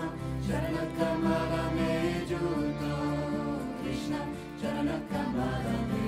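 Background music: a slow devotional chant with singing voices over sustained held notes.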